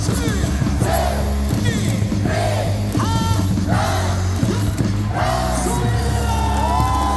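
A large stadium crowd singing and shouting a cheer song together over loud amplified music with a heavy, steady beat.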